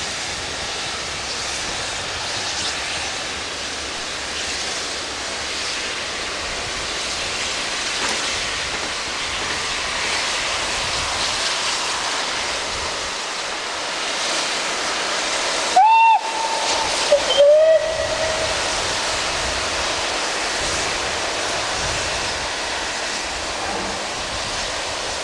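Two short steam locomotive whistle blasts about a second and a half apart, the first higher-pitched than the second, over a steady rushing noise.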